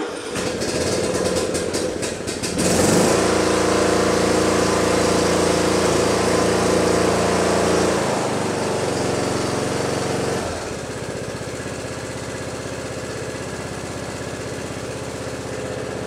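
Briggs & Stratton Intek riding-mower engine cranking on the starter for a couple of seconds, then catching and running. It holds a higher speed, then settles to a lower, quieter speed about ten seconds in. The engine now starts and runs normally on its new compression-release camshaft.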